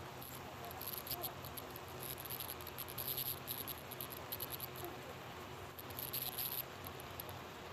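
Raw pork belly slices being laid over vegetables in an electric skillet, with quick clusters of faint, high, crackling ticks from about one second in until near the end, over a steady low hum.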